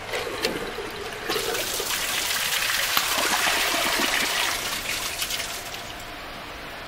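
One-piece ceramic toilet flushing with its tank lid off. A couple of clicks come as the push-button flush valve is pressed, then water rushes into the bowl, building to a peak midway and easing off toward the end.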